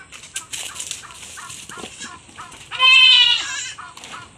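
A goat bleating once, a single loud wavering call about a second long, a little before three seconds in.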